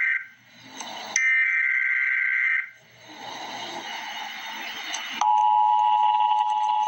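Emergency Alert System header: short bursts of screeching data tones, the last two of them here, then a hissy pause, and about five seconds in the steady two-tone attention signal sounds.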